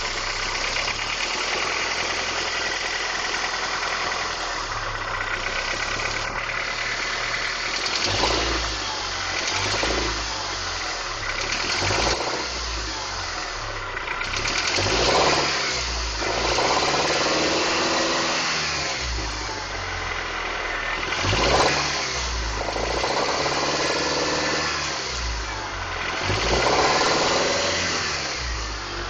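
1994 Honda Accord's four-cylinder VTEC engine idling, then revved up and down several times from about eight seconds in, with the knocking noise the owner is trying to identify.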